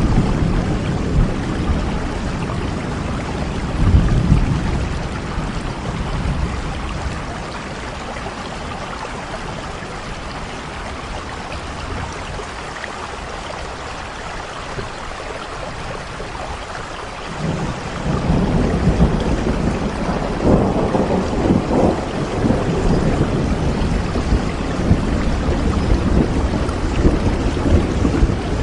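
Steady rain with thunder: low rumbles near the start, a quieter stretch of rain alone mid-way, then a long roll of thunder building up from about two-thirds of the way through.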